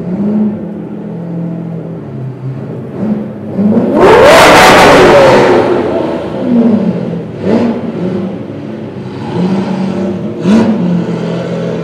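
Lamborghini Diablo VT's V12 with a very loud exhaust, rolling at low revs, then revved hard about four seconds in and rising to its loudest, followed by several shorter throttle blips, echoing in an underground car park.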